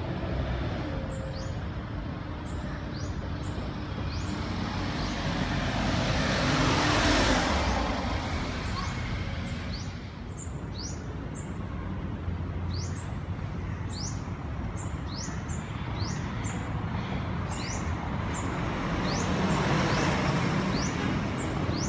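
Street traffic noise, with a vehicle passing about a third of the way in as the loudest moment and a smaller swell near the end. Over it, short high chirps falling in pitch repeat about twice a second through most of it.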